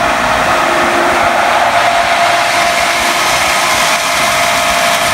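Pentair IntelliFlo VSF variable-speed pool pump running at full speed, 3450 RPM, in its priming cycle: a loud, steady whir with a constant motor whine. It is the pump running again after its drive panel was repaired.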